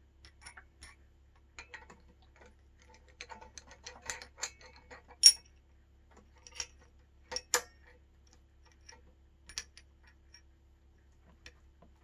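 Scattered metal clicks and taps from a bicycle headset press and anodized headset cups being handled and set in place in the head tube before pressing. The sharpest click comes about five seconds in, with a couple more a few seconds later.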